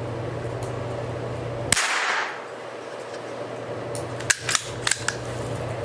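A single .22 LR shot from a Ruger Precision Rimfire bolt-action rifle, with a short echo, a little under two seconds in. About two and a half seconds later comes a quick run of four sharp metallic clicks as the bolt is worked for the next round, over a low steady hum.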